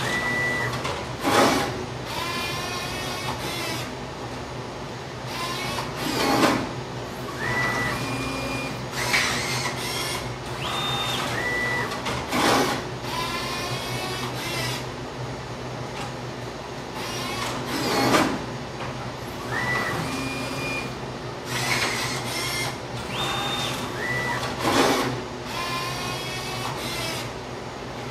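Vending machine prototype's robotic picking mechanism running: its motors whine, stepping up and down in pitch as the gripper moves. A loud clunk comes about every five to six seconds, five in all, as each pick-and-dispense cycle ends.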